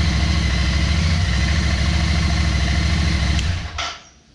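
Royal Enfield Interceptor 650's parallel-twin engine idling steadily. About three and a half seconds in there is a click and the engine sound drops away abruptly.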